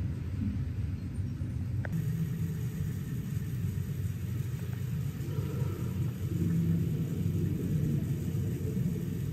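Steady low rumble of a car driving, with a brief click about two seconds in.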